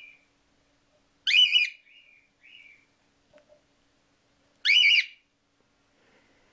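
Cockatiel calling: a few soft, short whistle notes and two loud, shrill calls about three and a half seconds apart.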